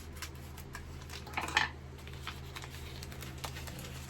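Small plastic packaging and tiny plastic pieces being handled and opened by hand: scattered light clicks and ticks, with a short crinkle about one and a half seconds in.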